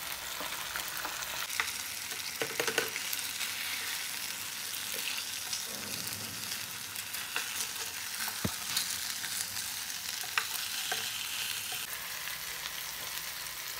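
Pearl spot fish (karimeen) shallow-frying in oil in a pan: a steady sizzle, with light taps and scrapes of a spoon and spatula as the fish are turned over.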